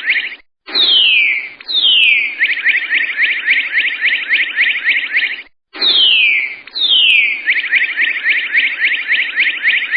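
A high, rapid trilled animal call: two falling whistles, then a fast run of chirps at about ten a second. The phrase is given twice.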